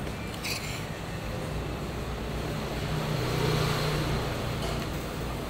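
Street traffic: a motor vehicle's engine running close by, a steady low hum that grows louder about three seconds in and eases off near the end. A light clink is heard about half a second in.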